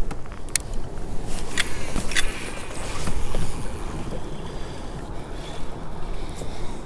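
Water sloshing against a kayak with a steady wash of noise, broken by a few sharp clicks and knocks from handling the fishing rod and reel, most of them in the first couple of seconds.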